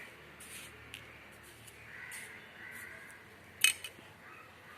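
A spoon clinks sharply once against a bowl or container about three and a half seconds in, while salt is added to the potato and semolina dough. Faint harsh animal calls sound in the background.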